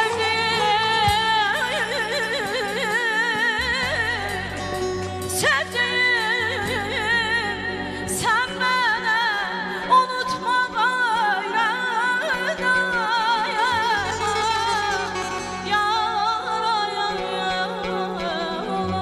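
A woman singing an Azerbaijani song into a microphone, her voice wavering strongly and ornamented with runs, over steady instrumental accompaniment.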